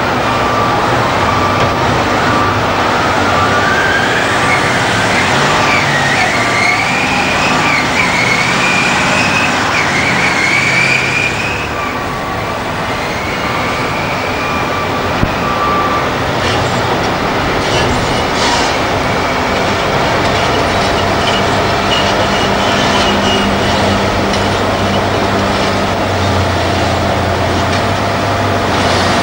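Heavy diesel earthmoving machinery working: a Caterpillar 769C off-highway dump truck's engine and drivetrain run with a whine that climbs in pitch over the first ten seconds as it pulls away, over a repeated beep. Later come clattering knocks of rock and steel, and near the end the Liebherr R992 hydraulic excavator's diesel engine runs with a heavy low note under digging load.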